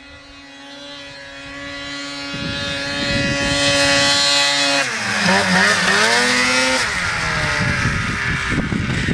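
Snowmobile engine running hard up a steep snow climb, growing louder over the first few seconds. About halfway through its pitch dips and wavers for a couple of seconds as the throttle is worked, then slowly falls away.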